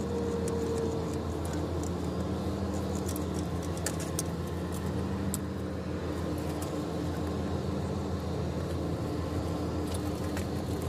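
Steady low engine hum with scattered light metallic clicks and clinks as hands and tools work around the fuel filter of a Caterpillar diesel engine.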